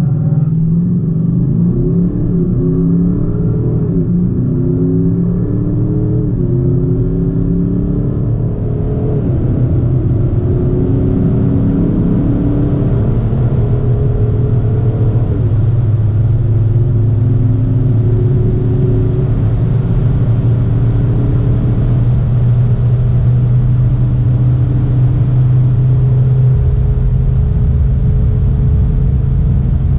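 Audi SQ8 TDI's 4.0-litre V8 turbo-diesel under full-throttle launch-control acceleration from a standstill. The engine note climbs and falls back at each upshift of the automatic gearbox, the shifts coming quickly at first and further apart as speed builds. A rushing noise grows in under the engine from about eight seconds in.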